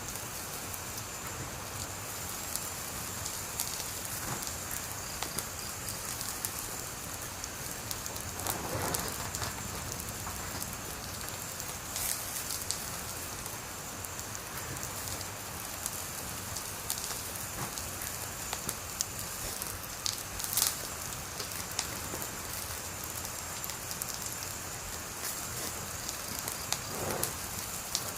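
Wood fire burning with a steady hiss and scattered crackles and pops, the sharpest pop about twenty seconds in.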